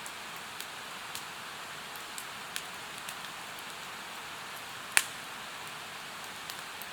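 Firewood burning in a campfire, crackling with scattered small pops and one loud sharp pop about five seconds in, over a steady rushing hiss of a mountain stream.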